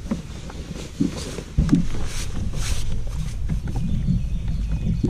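Thumps and knocks on a bass boat's deck as a person gets up and steps onto the front deck, over a steady low rumble of wind on the microphone. The two clearest thumps come about a second in and about a second and a half in.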